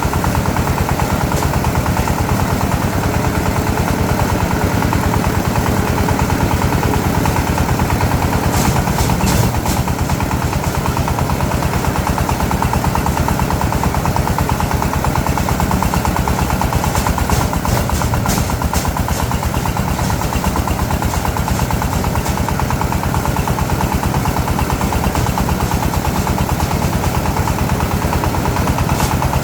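A small engine running steadily at an even speed, with a fast, regular chatter; short bursts of sharp rattling come about nine seconds in and again around eighteen seconds.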